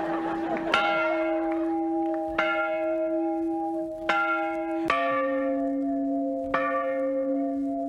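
Church bells tolling slowly, with about five strikes that each ring on into the next. About five seconds in, a lower-pitched bell takes over.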